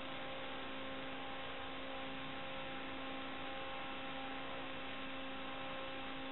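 Steady electrical hiss with a constant hum of a few fixed tones, unchanged throughout: the audio channel of an analog FPV video receiver or DVR picking up noise, not the quad's motors.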